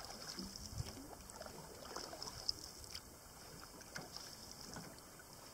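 Faint sounds of a canoe being paddled on calm water: paddle strokes and drips, with scattered light ticks and knocks against the hull.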